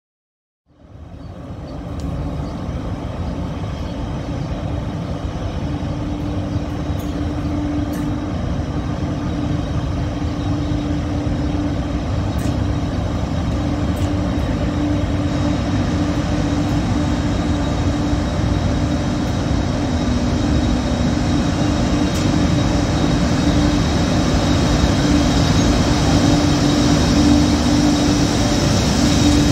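Electric locomotives hauling a train slowly into the station: a steady running noise of wheels on rail with a strong, constant hum, growing louder as the locomotives draw alongside the platform. The sound sets in a moment after the start.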